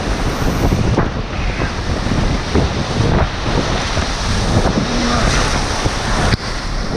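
Rushing whitewater of a river rapid, loud and continuous, with wind buffeting the microphone.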